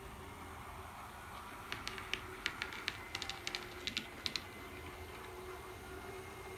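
HO-scale brass Overland Models Union Pacific gas turbine locomotive with tender and caboose running past with a light, faint steady whir. About two seconds in, a quick, uneven run of a dozen or so sharp clicks from the wheels on the track lasts until about four and a half seconds in.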